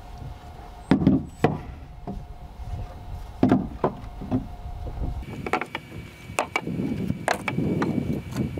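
Wooden 2x4 studs knocking as they are set down one after another between the wall plates on a wooden deck: a scatter of sharp wooden knocks, a few close together.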